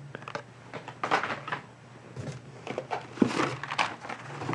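Blister-packed die-cast toy cars on their card backings being handled and shuffled, with irregular plastic clicks and crinkles as hands dig into a cardboard shipping case.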